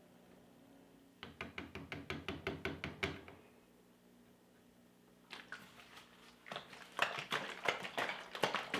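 A gallon jug of water-cooling coolant being shaken hard to mix in the concentrate: liquid sloshing and knocking inside the plastic in quick, even strokes, in two spells with a pause between.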